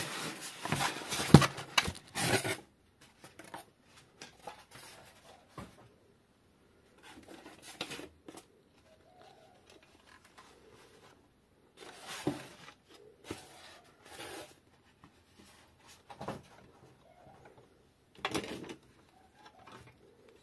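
Packaging being handled while a car speaker is taken out of its box: irregular rustling, scraping and small knocks, busiest in the first couple of seconds and then in scattered bursts.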